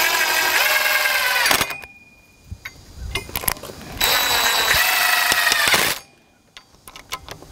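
DeWalt cordless impact driver driving screws through a steel door hinge into a 2x4: two runs of about two seconds each, a couple of seconds apart, with a few light clicks between them.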